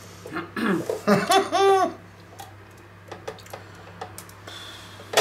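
A person laughing, several short pulses of laughter over about a second and a half, followed by a few faint clicks of kitchen utensils.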